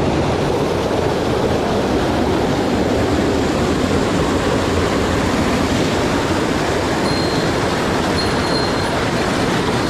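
Mountain stream rushing, a loud steady noise of running water.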